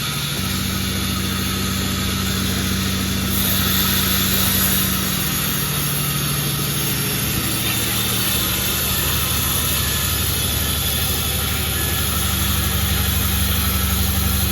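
Sawmill machinery running steadily: a low engine-like hum with a hiss above it that swells a few seconds in and again near the end.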